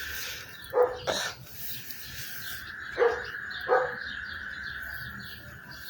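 A steady, high-pitched chorus of frogs calling after heavy rain. Four short, loud animal calls break in, in two pairs about two seconds apart.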